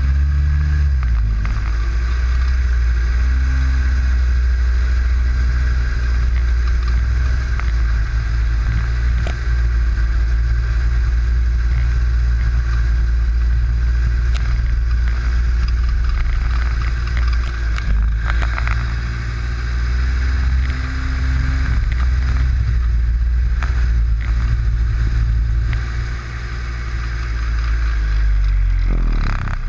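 Snowmobile engine running under way on a trail, its pitch wavering slightly with the throttle and easing off briefly near the end.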